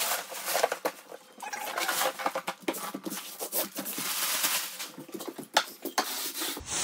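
Clear plastic wrapping and the Schluter DITRA-HEAT peel-and-stick uncoupling membrane crinkling and rustling as the roll is unrolled and smoothed down, with many irregular sharp crackles.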